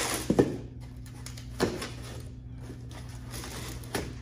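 Knocks and clunks of hood strut parts and tools being handled while gas struts are fitted: a cluster at the start, another about a second and a half in, and one near the end, over a steady low hum.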